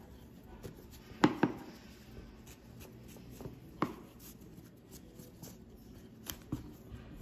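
Fingers handling a dish towel while drawing a single thread out of the weave, the cloth gathering as the thread is pulled: faint rustling with a few brief sharp scratches, two close together about a second and a half in and another near four seconds.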